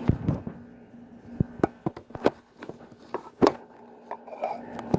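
Handling noise: a string of irregular knocks and clicks, about ten in all, the loudest about three and a half seconds in.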